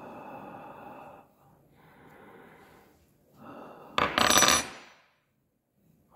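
A man's slow, open-throated exhalations through the mouth, the breath used to fog a spoon, three in a row. About four seconds in comes a short, loud burst of noise.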